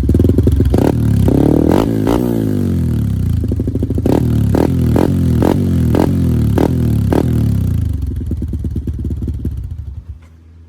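Yamaha Y15ZR's single-cylinder four-stroke engine running through an Espada 28 mm stock-style aftermarket exhaust, revved once, then a run of about seven sharp cracks roughly every half second. The engine winds down and stops near the end.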